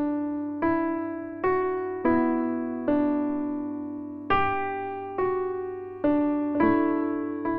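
Background music: slow, gentle piano, single notes or soft chords struck about once a second, each fading away before the next.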